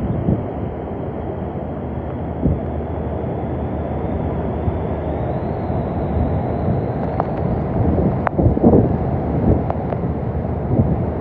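Hurricane-force wind buffeting the phone's microphone, a steady low rumble with a few brief knocks and a louder gusty patch about eight to nine seconds in.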